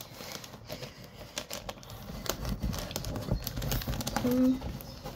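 Handling noise: a drinking glass knocking and scraping on cardboard as a plastic bag is worked under it, with scattered light clicks and soft thumps. A brief low hum comes about four seconds in.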